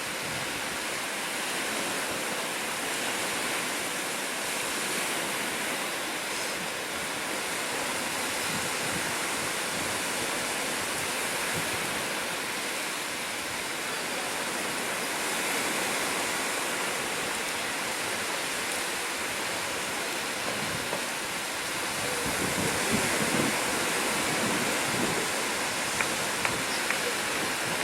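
Black Sea surf washing on the shore, a steady rushing noise. A deeper rumble joins about 22 seconds in, and a few small clicks come near the end.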